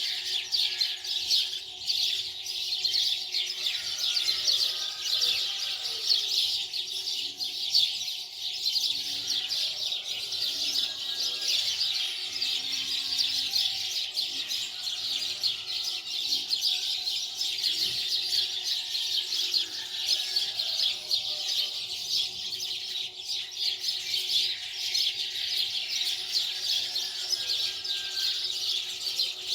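Many small birds chirping densely and continuously, high-pitched.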